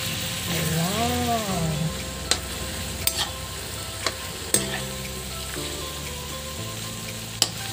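Bitter melon, chicken and egg sizzling in a hot wok as they are stir-fried with a metal spatula, with a steady hiss and a few sharp clicks as the spatula strikes the pan.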